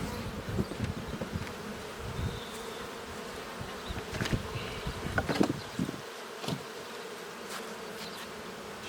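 Honeybees of a queenless colony buzzing steadily around an open, freshly split hive, with single bees flying close past now and then and a few light knocks.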